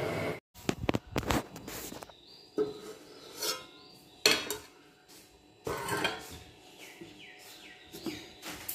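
A stainless steel cooking pot clinking and knocking against the counter and tray as it is handled and set down, with several sharp metallic knocks, some ringing briefly. The loudest knock comes about four seconds in. A steady rushing noise cuts off abruptly right at the start.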